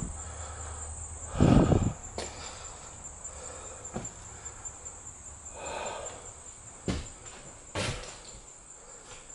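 Footsteps and thumps of someone walking through a house, the heaviest about a second and a half in and sharper knocks near the end, over a steady high insect trill.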